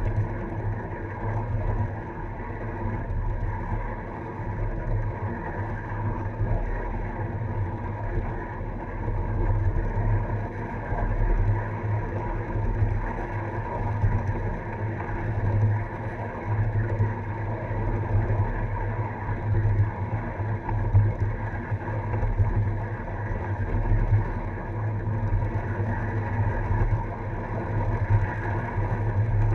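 Ride-on miniature railway train rolling along the track: a steady rumble of the cars' wheels on the rails that swells and fades unevenly.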